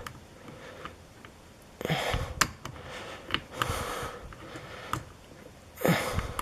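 Small metal clicks and handling noise from a clip removal tool being worked on a lock cylinder to free its retaining clip, with two short, louder rustling bursts about two and six seconds in.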